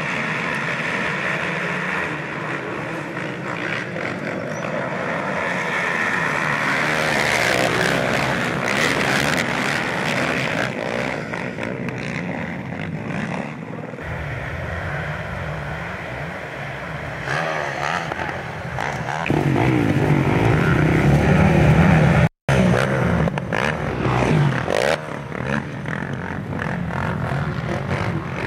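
Off-road racing engines, motocross bikes and racing quads, revving and passing, rising and falling in pitch. The sound cuts out for a moment about two-thirds of the way through.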